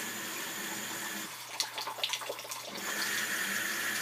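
Water running from a faucet at a low flow, turned nearly off. The running water drops out for about a second and a half partway through, with a few clicks, then comes back on.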